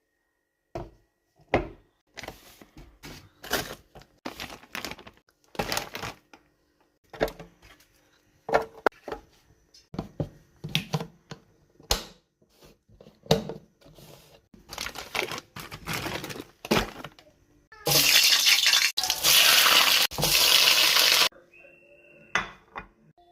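Kitchen prep sounds: irregular clinks and knocks of utensils against dishes and bowls. Near the end comes a loud, steady rushing noise lasting about three seconds, broken off briefly twice.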